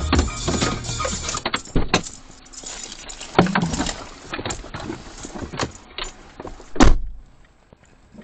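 Irregular clicks and knocks heard from inside a car standing still in the rain, the loudest a heavy thump about seven seconds in, after which the sound drops away.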